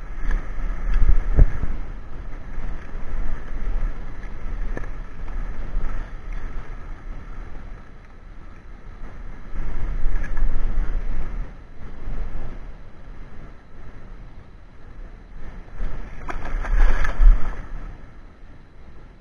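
Wind buffeting the microphone with a gusty rumble over the wash of shallow sea water. A few sharp knocks come about one and a half and five seconds in, and a louder gust comes near the end.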